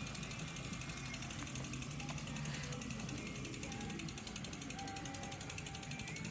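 Bicycle freewheel hub clicking in a fast, even ticking as the bike coasts.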